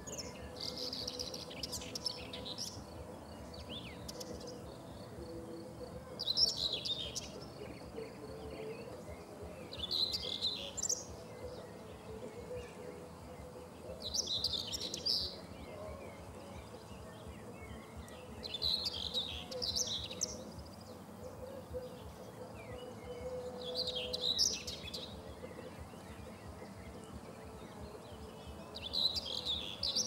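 Common whitethroat (Sylvia communis) singing short warbling phrases, each about a second long, one every four to five seconds.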